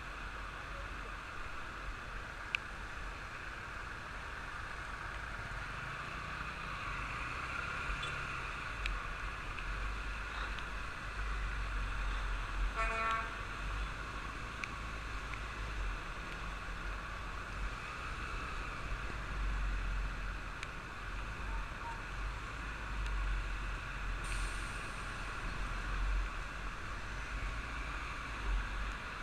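Steady rushing hiss over a low rumble, with one short vehicle horn toot about thirteen seconds in.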